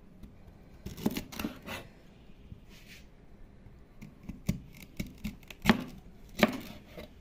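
Kitchen knife cutting through a raw fennel bulb on a plastic cutting board: crisp cuts and knocks of the blade on the board, a quick cluster about a second in and then single cuts, the loudest two near the end.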